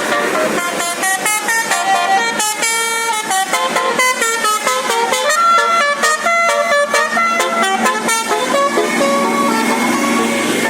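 Basuri telolet musical bus horn playing a quick tune of short pitched notes, turning to longer held notes near the end.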